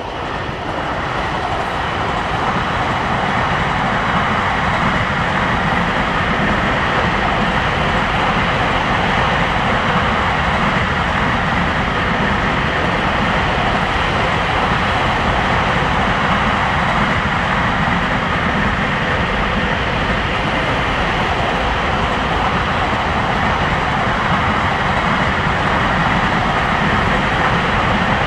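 Freight train hauled by an EF81 electric locomotive running past at speed: a steady rumble of wheels on the rails that grows louder over the first few seconds and then holds.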